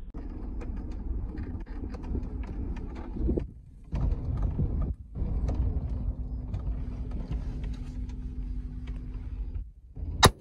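Vehicle on the move, a steady low rumble with a faint even hum, cut off briefly twice. Near the end a single sharp crack.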